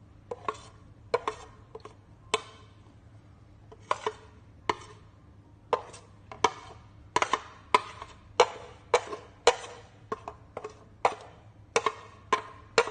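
A spoon knocking against a mixing bowl as spices are tipped in. About twenty sharp, irregular taps, each with a brief ringing tone, coming more quickly in the second half.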